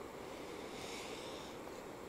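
Faint steady background hiss with no distinct event.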